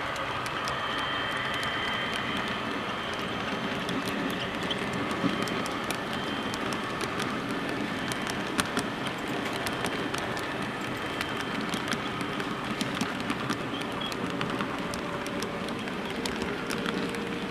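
Model train locomotives and freight cars running along the track, a steady running noise with the wheels clicking irregularly over the rail joints.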